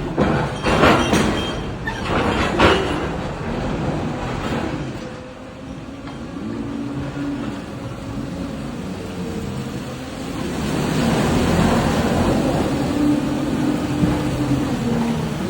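Large electric excavator loading ore into a railcar. Rock crashes heavily into the wagon in the first few seconds, the machine's electric drives whine up and down in pitch, and a longer rush of falling ore comes about eleven seconds in.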